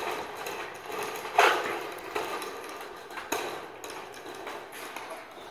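Corrugated sheet-metal roof panel flexing and rattling as it is pushed up onto a steel carport frame, with a loud clatter about a second and a half in and a couple of sharp metal knocks later.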